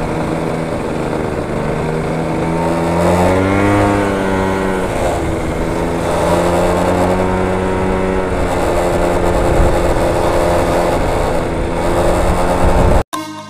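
Motorcycle engine running on the move, with wind rushing over the microphone; the engine pitch rises and then falls about three to five seconds in. It cuts off abruptly just before the end, giving way to music.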